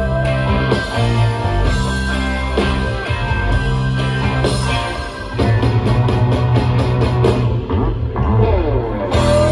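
Live instrumental rock from a full band: electric guitars over bass and drums, with no singing. A guitar holds a long note at the start, quick regular drum strokes come in about halfway, and falling guitar slides are heard near the end.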